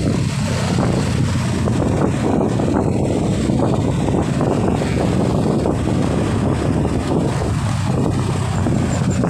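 Motorcycle running at a steady cruising speed, with wind rushing over the microphone.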